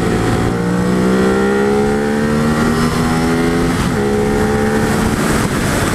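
A vehicle engine accelerating hard, its pitch climbing steadily, dropping briefly about four seconds in as it shifts up a gear, then climbing again.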